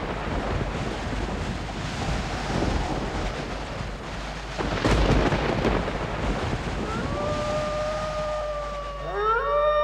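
Thunder sound effect: a rolling, rumbling storm with a sudden thunderclap about five seconds in. About seven seconds in, a long howl rises and then holds, sinking slightly, and near the end eerie gliding tones join it.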